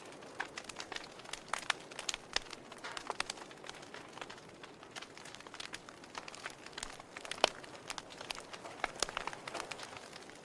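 Wood fire in a fireplace crackling, with irregular sharp pops and snaps over a soft hiss of burning. One louder pop comes about seven and a half seconds in.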